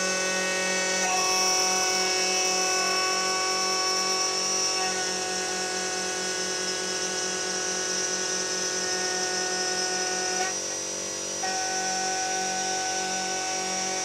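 CNC milling machine cutting aluminium plate with a 6 mm two-flute endmill on a 2.2 kW high-speed spindle, driven by stepper motors: a steady whine with several held tones over a hum that pulses several times a second. The tones shift a few times as the feed moves, and about ten and a half seconds in some drop out for about a second before the cut resumes.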